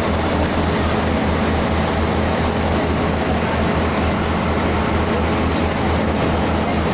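A river boat's engine running steadily: a constant low drone with a broad rushing noise over it.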